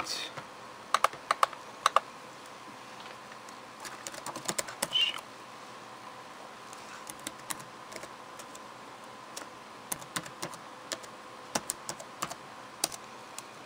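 Typing on a computer keyboard: irregular clusters of key clicks with pauses between them.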